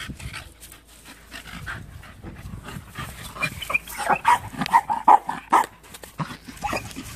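Dog breathing hard close to the microphone, then a quick run of short, high-pitched yelps about four to five seconds in.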